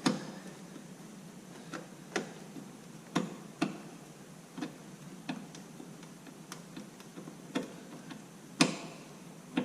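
Phillips screwdriver clicking and knocking against the Jeep YJ headlight bezel's screws in about a dozen sharp, irregular clicks, the loudest one near the end. The bit keeps slipping in a screw head that has been stripped out before.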